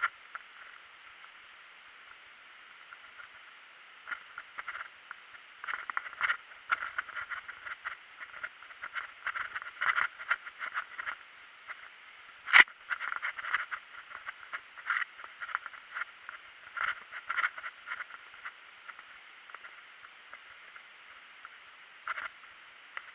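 Mountain bike clattering and rattling over a gravel and dirt trail, in irregular bursts as the wheels hit bumps, with one sharp knock about halfway through.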